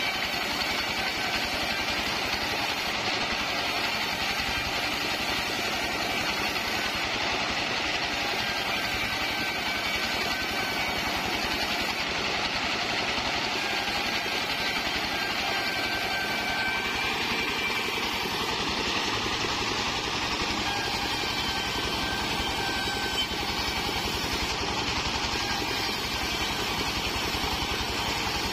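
Stationary engine of a mobile band sawmill running steadily, driving the band saw.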